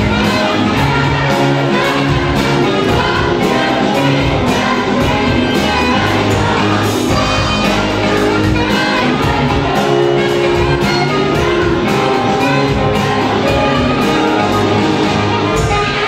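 Live band playing loudly in a large hall: saxophone, electric guitar, bass guitar, keyboard and drum kit, with a steady drum beat.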